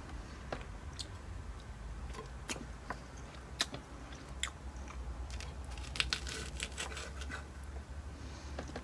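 A person chewing and biting food close to the microphone, with scattered sharp clicks and crunches, thickest about six to seven seconds in.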